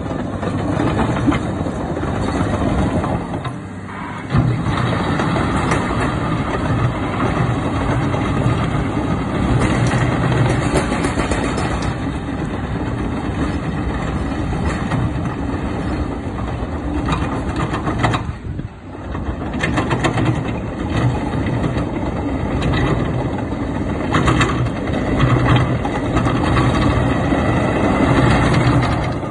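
2008 Caterpillar 953D track loader's six-cylinder diesel engine running as the machine travels, with the clatter of its steel tracks. The sound drops off briefly twice, about four seconds in and a little past halfway.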